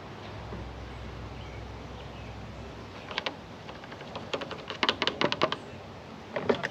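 A quick, irregular run of light clicks and taps, densest about two thirds of the way in and again just before the end, over a faint low hum in the first few seconds.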